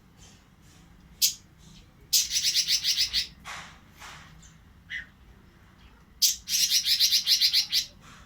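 Pekin robin (red-billed leiothrix) in breeding condition, singing: two bursts of fast, rapidly repeated high notes, each just over a second long, with single short calls between them.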